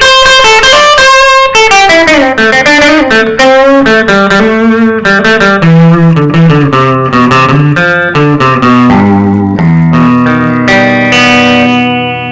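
Clean electric guitar: a Squier Stratocaster with two Epiphone SG Pro humbuckers, both pickups full on, played through a Peavey Delta Blues amp. It plays a quick run of picked single notes and chords, ending on longer held notes.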